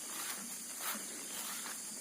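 Steady high-pitched buzzing of insects, with a few faint scuffs or knocks.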